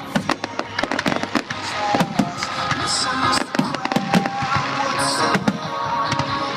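Fireworks going off, many sharp bangs and crackles in quick succession, over music playing.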